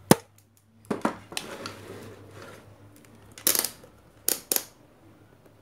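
Handling noise of small hard objects: a few sharp clicks and knocks. The loudest comes right at the start, with more about three and a half and four and a half seconds in.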